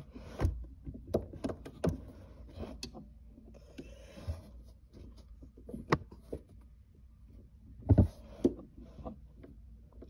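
Scattered clicks and knocks of a screwdriver and a metal pry rod working at the base of a shift knob, prying the shifter boot's collar loose. The loudest knock comes about eight seconds in.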